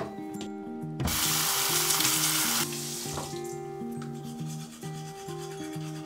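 Water from a bathroom tap running into the sink for about a second and a half, an even hiss that starts about a second in and cuts off abruptly, over background music.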